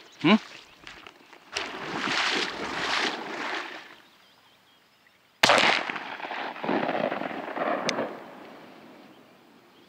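Two shotgun shots, the first about a second and a half in and the second, much louder, about five and a half seconds in, each trailing off in a long rolling echo. A brief sharp falling-pitched sound comes right at the start.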